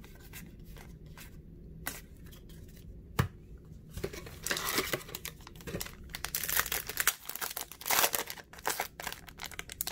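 A few light clicks of trading cards being handled, then, from about four seconds in, the crinkling and tearing of a foil hockey-card pack wrapper being ripped open.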